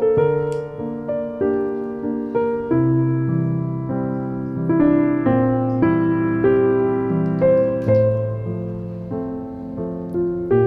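Background piano music: a slow, gentle melody of single notes and chords, each note ringing out and fading.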